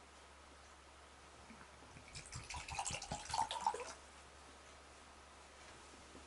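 Water pouring from a terracotta jug into a small clay cup, a short faint trickle and splash lasting about two seconds.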